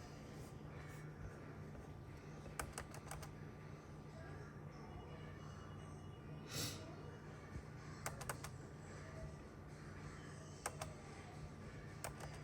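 Clicking on a computer's keys and buttons in short groups of two to four clicks, with a brief puff of noise about halfway through, over a steady low hum.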